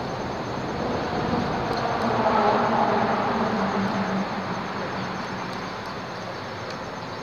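A heavy vehicle crossing the highway bridge overhead: a rumble with a steady hum that swells about two seconds in and fades away over the next few seconds.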